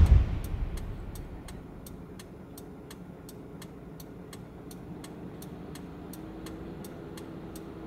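Parked car's indicator relay ticking steadily, about three clicks a second, over a low cabin rumble; a loud rushing noise dies away in the first second.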